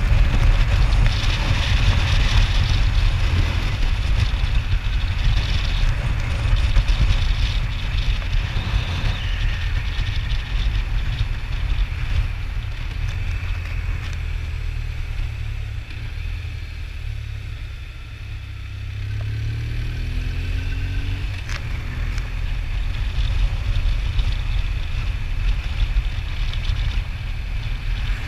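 Motorcycle riding along a road, heard from the bike: a steady low rumble of engine and wind on the microphone. The sound drops a little about two-thirds of the way through, then the engine note rises briefly.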